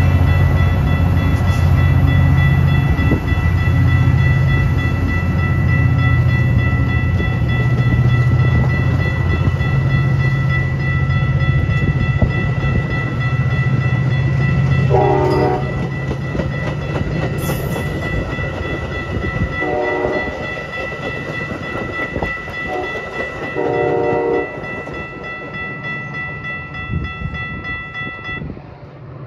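Metra commuter train's diesel locomotive pulling away with its bilevel cars: a loud low engine drone that fades after about twelve seconds as the train draws off. Partway through, the train horn sounds in the distance in a long, long, short, long pattern, a grade-crossing signal. Steady high-pitched ringing tones run underneath.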